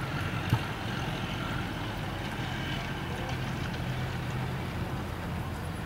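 Steady low rumble of outdoor background noise with a faint, even hum.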